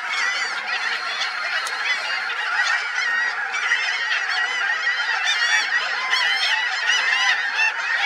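A large flock of birds calling all at once: a dense, unbroken chorus of many short overlapping calls.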